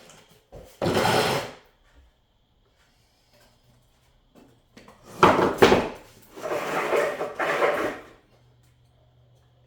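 Packaging being handled during unboxing: a short burst of scraping or sliding about a second in, then a longer stretch of scraping from about five to eight seconds in.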